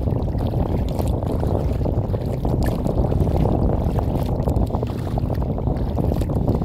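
Wind buffeting a phone's microphone on a kayak's bow, a loud, dense rumble with faint splashes of water against the hull.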